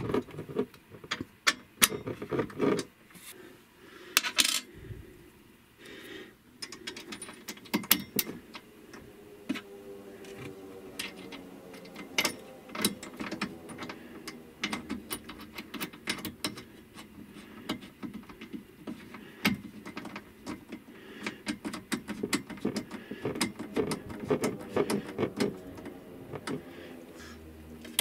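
Irregular small metallic clicks and clinks of a nut, lug and hardware being fitted and tightened by hand onto the positive DC input terminal stud of a power inverter.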